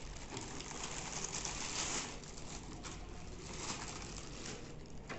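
Rustling and crinkling of packaging as a wireless keyboard is handled out of its box, with a few light knocks.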